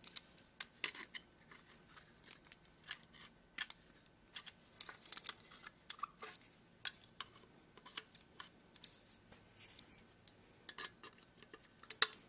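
Irregular small metallic clicks and light scrapes as a hand tool works a cotter-pin handrail stanchion out of a pressed-tin toy locomotive body.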